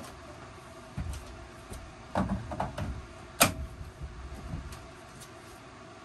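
A propane hose fitting being handled and pushed onto the inlet of a portable forced-air propane heater: a run of clunks and clicks over a faint steady hum, the sharpest click about three and a half seconds in.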